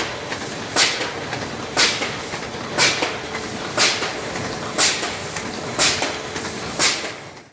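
Paper and cardboard folding and gluing machine running steadily, with a short, sharp burst about once a second in a regular cycle. The sound fades out at the very end.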